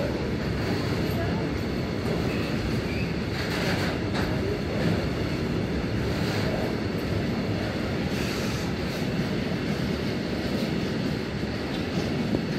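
Container freight train passing through a station: steady rumble of its flat wagons' wheels on the rails.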